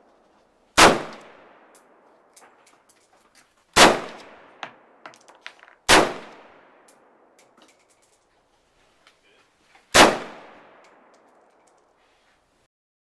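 Four single gunshots a few seconds apart, each with a long ringing echo tail, with small metallic clicks and clinks in between.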